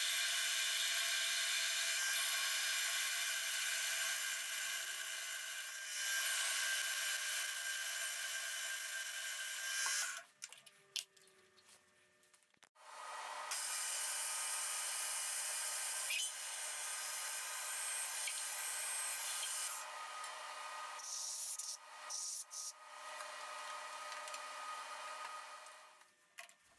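Milling machine spindle running while a twist drill bores an undersize hole in a solid brass rod. After a break of about two seconds near the middle, the spindle runs again as a reamer finishes the hole to size, this time with a steady low hum.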